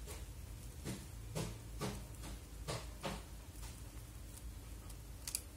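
Handling noise of a webcam and its coiled USB cable: a handful of light clicks and rustles as the cable is gathered in the hands, with a sharper click near the end, over a steady low hum.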